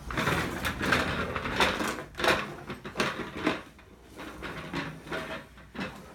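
Toy telephone pull toy clacking and rattling on its wheels as it is dragged across a wooden floor by its string: an uneven run of clicks and knocks that thins out near the end.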